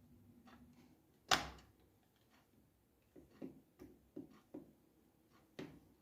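Knocks and clicks from handling the parts of a DeWalt DC825 cordless impact driver on a workbench: one loud knock a little over a second in, then a quick run of lighter knocks and another knock near the end.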